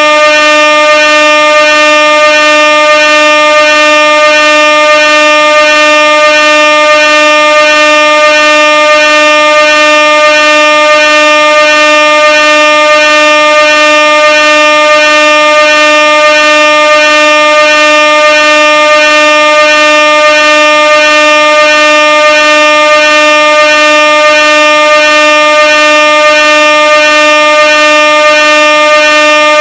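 Air horn sounding one loud, unbroken tone at a steady pitch, with no pauses or changes.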